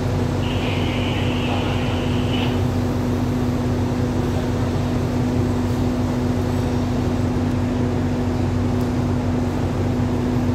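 Diesel-hauled express train standing at the platform with its diesel engine idling: a steady hum with a constant low tone. A high hiss sounds for about two seconds near the start.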